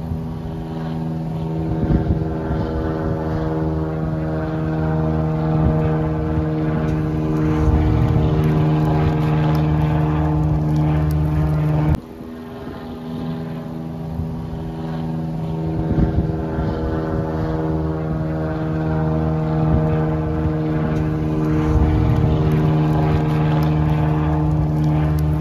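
A steady, low engine drone at a constant pitch, growing slowly louder. It drops abruptly about halfway through and then builds again.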